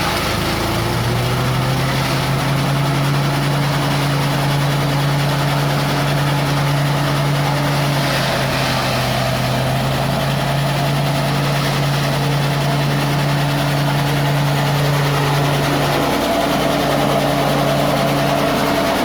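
Engine-driven grass chopper (forage chopper) running at a steady speed, a constant low engine hum with a whirring blade rotor. About sixteen seconds in the pitch dips briefly and then recovers.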